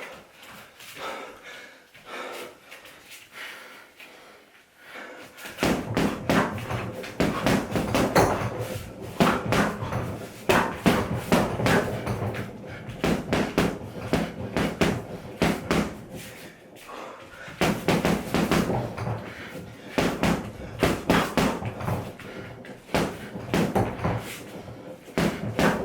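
Punches hitting a home heavy bag in fast flurries of sharp impacts. The flurries start about five seconds in, with a short break about two-thirds of the way through.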